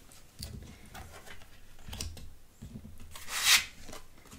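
Oracle cards being handled on a table: light taps and papery rustles, with a louder sliding swish about three and a half seconds in as a card is drawn from the deck.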